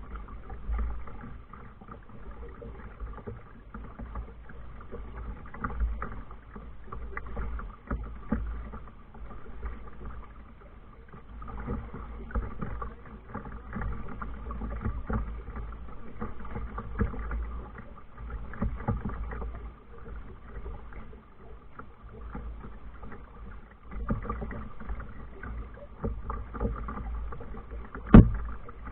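A kayak moving on the water: a steady wash of water noise with a low wind rumble on the microphone and scattered light knocks. One sharp, loud knock comes near the end.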